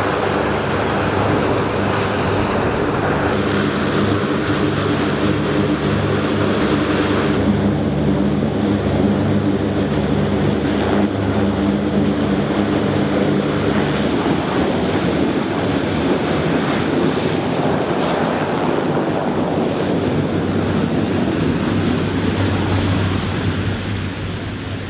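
CH-53E Super Stallion helicopters running close by: a steady, loud drone of rotors and turbines with a rushing noise of rotor wash. The sound eases slightly near the end.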